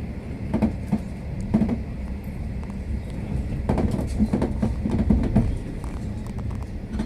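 V/Line passenger train running on the rails: a steady low rumble with groups of short knocks from the wheels, bunched more closely about halfway through.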